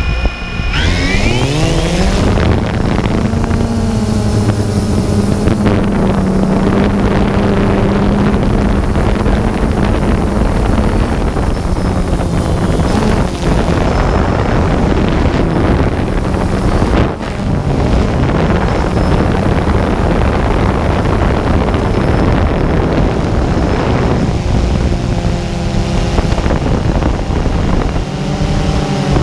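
Quadcopter drone's motors and propellers spinning up with a rising whine at takeoff, then a steady hum as it climbs and flies, with wind noise over its onboard microphone. The pitch shifts again near the end as the motors change speed.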